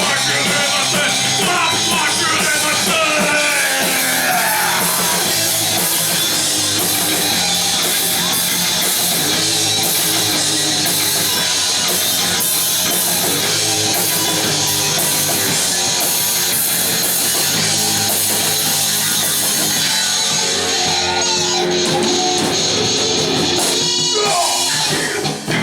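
Rock band playing loud, heavy music with electric guitar and drum kit.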